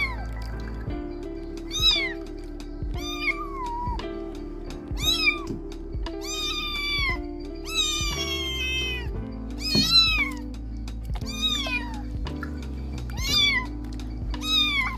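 Kittens meowing: about nine high-pitched cries, each falling in pitch, every second or two, over background music.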